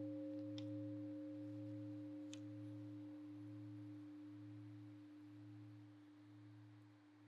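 Meditation bell ringing on after a single strike, its tone slowly fading, with a slow wavering pulse in its low hum.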